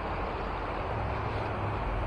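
Steady rushing noise of the flowing river, with a low rumble of wind buffeting the microphone.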